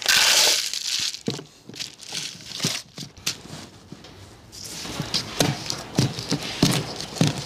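Potting mix and a plastic flowerpot being handled while a seedling is potted up: a loud rustling hiss in the first second, then quieter rustling, and from a little past halfway a run of sharp, irregular taps and knocks.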